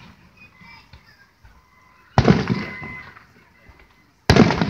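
Two aerial firework shells bursting, about two seconds apart, each a sharp boom followed by a rolling echo that fades over about a second.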